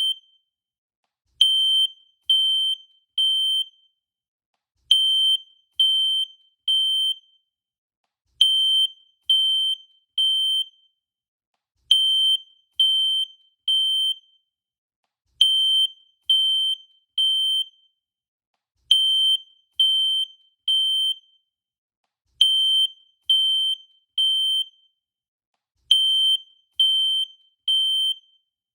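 Fire alarm beeping a high-pitched tone in repeating groups of three, with a short pause between groups. This is the standard three-beep evacuation pattern.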